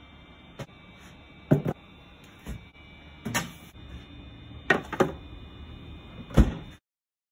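Kitchen handling sounds: a string of sharp knocks and clunks, a second or so apart, over a faint steady hum. The loudest comes near the end, and the sound then cuts off abruptly.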